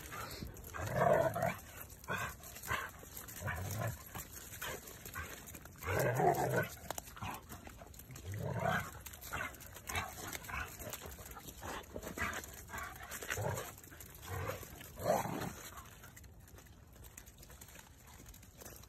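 Two dogs, a borzoi and a brown dog, growling in repeated bursts while play-fighting. The growls fade out near the end.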